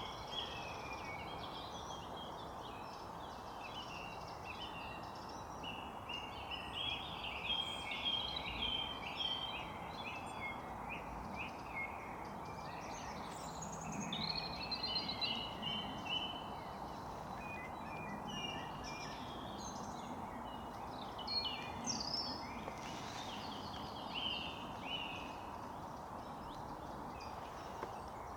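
Several songbirds singing at once, with many short chirps and trills overlapping, over a steady rushing background noise.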